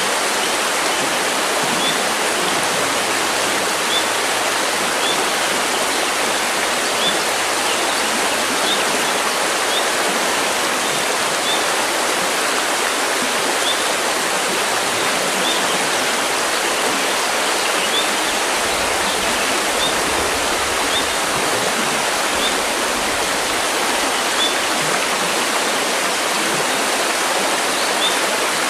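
River water rushing steadily, with short high bird chirps repeating every second or two over it.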